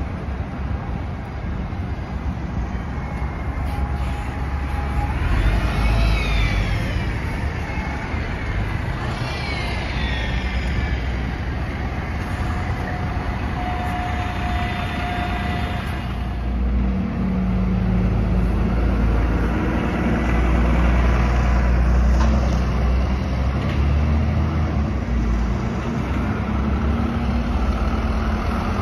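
City buses pulling away and passing close through a junction, their diesel engines running over traffic noise. A few short rising-and-falling whines and brief squeals come in the first half. A louder, deeper engine drone builds through the second half as a bus passes close.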